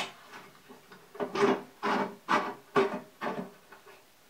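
Ryobi 9-inch band saw's work table being tilted by hand: a sharp click, then about six short scraping strokes about half a second apart as the table is worked over on its tilt mechanism.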